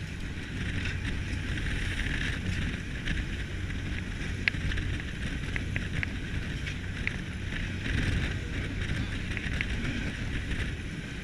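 Steady low drone of a fishing party boat's engine, with wind on the microphone and a few faint clicks.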